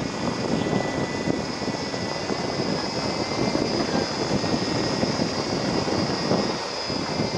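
Vehicle driving on an unpaved sandy track: steady engine and road noise with wind buffeting the microphone.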